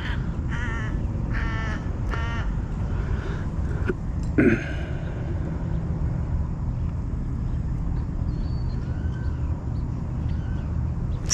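A large bird giving three short, rolling calls in quick succession over a steady low rumble. A brief, louder noise follows a couple of seconds later.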